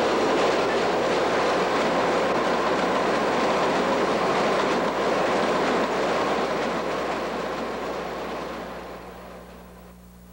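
Elevated subway train running along a steel elevated track, a steady loud noise that fades out over the last few seconds.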